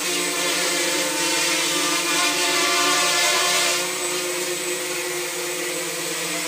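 Mini quadcopter's four small 10 g brushless motors and propellers whining in flight, several steady pitches over a hiss. It grows louder and brighter from about a second in, then drops back sharply near four seconds in.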